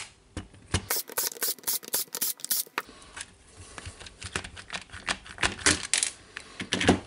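Irregular sharp clicks and light clatter of hard plastic being handled as the drill's clamshell housing halves are pried apart and lifted off, with a dense flurry of clicks about a second in and another near the end.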